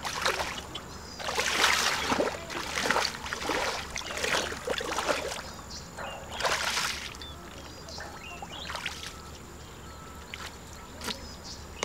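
Feet wading through shallow mud and water, with irregular splashing and sloshing at each stride; the splashes are louder in the first half and thin out after about seven seconds.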